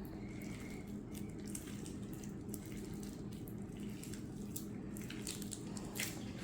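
Borax-activated glue slime being squeezed and stretched by hand, giving off irregular small wet clicks and pops.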